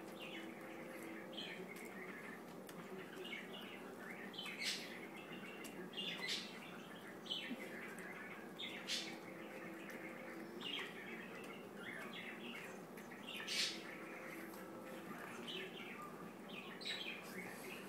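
A pug eating a peeled banana from a hand: irregular wet mouth smacks and chewing clicks, roughly one every second, over a steady low hum.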